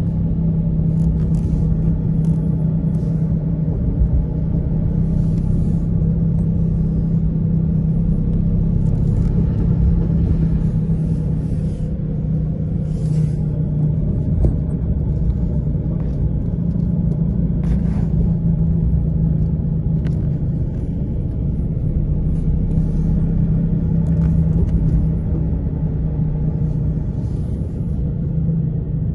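Car driving on a wet road, heard from inside the cabin: a steady low rumble of engine and tyres with a constant hum, and faint hiss now and then.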